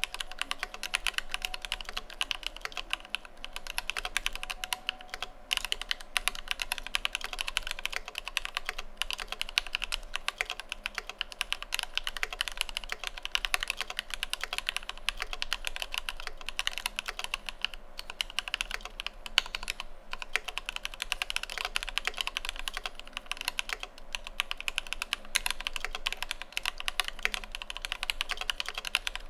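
Steady fast typing on a mechanical keyboard with lubed Alpaca V2 linear switches, PBT Cherry-profile keycaps and screw-in stabilizers on an Idobao ID80 aluminium case: a dense run of key clacks with only brief pauses.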